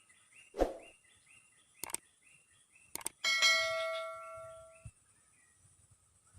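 A dull thud and two sharp clicks, then a single metallic ding that rings and fades over about a second and a half. Short repeated bird chirps go on throughout.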